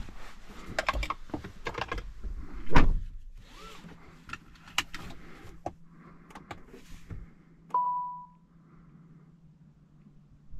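Driver's door of a Citroen C5 Aircross pulled shut with a solid thunk about three seconds in, after a run of clicks and knocks from inside the cabin. A faint steady hum follows as the car is switched on, and a short electronic chime sounds about eight seconds in.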